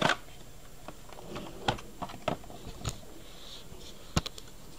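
Cardboard box and clear plastic packaging tray being opened and handled: a few sharp plastic clicks and crackles spread out, the sharpest about four seconds in.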